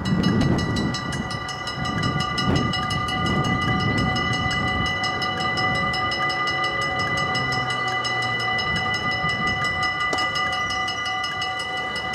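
Dutch level-crossing warning bells start ringing as the crossing activates, a rapid, steady, metallic ringing that keeps on while the barriers come down. It is the signal that a train is approaching.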